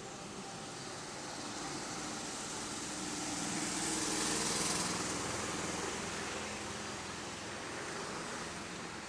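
A passing vehicle: a steady rushing noise with a low hum that swells to a peak about halfway through and then fades away.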